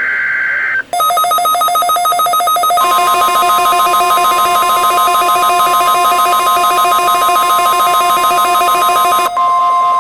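NOAA Weather Radio alert signal: a buzzy digital data burst ends about a second in and a rapidly pulsing alert tone starts. About three seconds in the steady 1050 Hz Warning Alarm Tone joins it, and both sound together at full loudness. This is the weekly test of the warning alarm.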